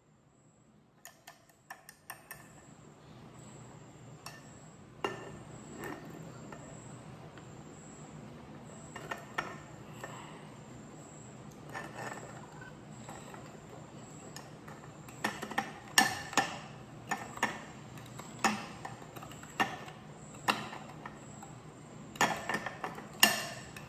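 A spoon tapping and scraping against a bowl and a drinking glass as thick whipped coffee cream is scooped and scraped out. The taps are irregular, sparse at first and busier and louder in the second half.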